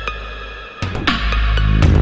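Background music with a heavy bass and sharp drum hits, including a strong hit a little under halfway through.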